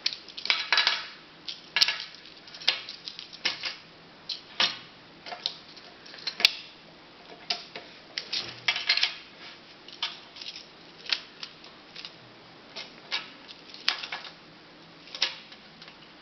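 Magnetic building-block squares clicking and clacking against each other as they are gathered and snapped together, a string of irregular sharp clicks.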